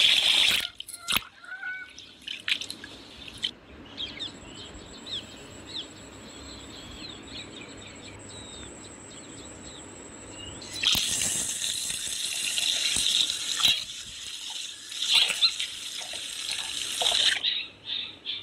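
Knife cutting and scraping through jackfruit rind, heard as loud, uneven rasping strokes from about eleven seconds in. Small chirps sound during the quieter stretch before it.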